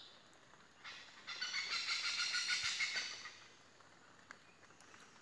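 Oriental pied hornbill calling, a loud pulsing call that starts about a second in and lasts about two seconds.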